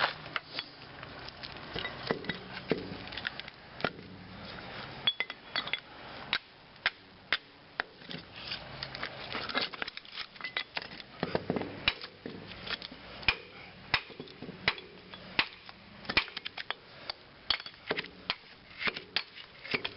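Metal parts of a transformer being pulled apart by hand: many irregular clinks and light knocks, several a second, some ringing briefly.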